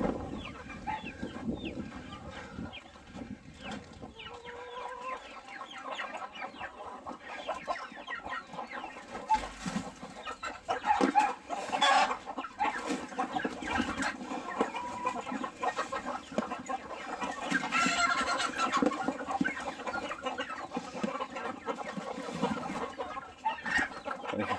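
A flock of Cheonggye chickens clucking continuously, with a burst of louder calls about halfway through and another about three-quarters of the way in.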